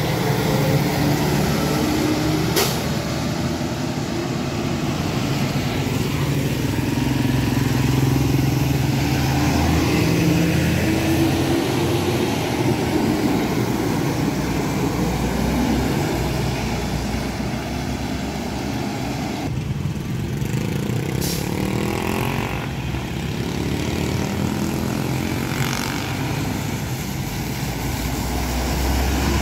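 Diesel intercity coaches (Zhongtong and Yutong) driving past one after another on a wet road. Each engine's low drone rises and falls in pitch as the bus goes by, over a steady hiss of tyres on the wet road. There is one sharp click a few seconds in.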